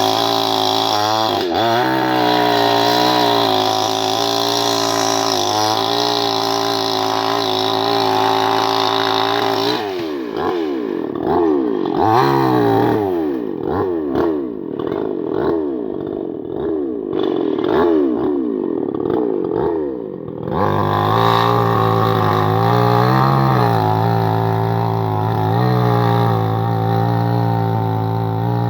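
Chainsaw engine running at high revs, steady for about ten seconds. The revs then dip and recover over and over for about ten seconds as the throttle is worked, before holding steady and high again.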